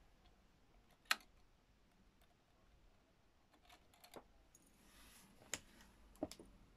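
A handful of small sharp clicks over near silence, the sharpest about a second in, from a hand working OO gauge model wagons and their couplings during shunting.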